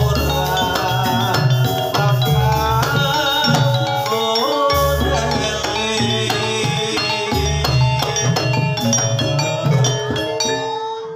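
Javanese gamelan music for a jathilan horse dance: metallophones ringing out a fast melody over drums, with a deep booming stroke recurring every couple of seconds.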